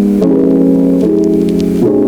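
Background music: soft keyboard chords, changing about every second.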